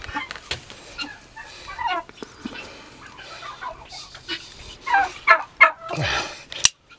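Barnyard fowl calling in short clucks and squawks, with a bright cluster of calls about five seconds in. A single sharp click comes shortly before the end.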